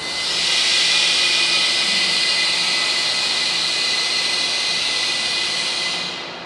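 Compressed air hissing steadily from the pneumatic cannon used to fire 2x4 missiles in debris impact testing, with a faint thin whistle under the hiss. It comes in at the start and fades out about six seconds later.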